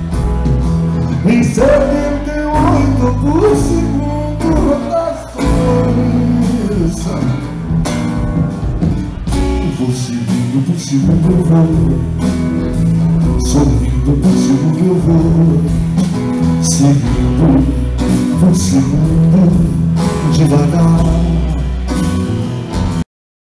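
Live acoustic song: a man singing at a microphone over strummed acoustic guitar, with a steady bass line underneath. The sound cuts off abruptly near the end.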